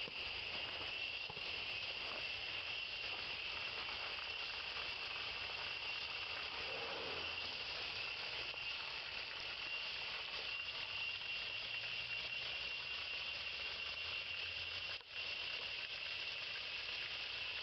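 Steady chorus of forest insects: a continuous high-pitched drone that hardly changes, dropping out for a moment about fifteen seconds in.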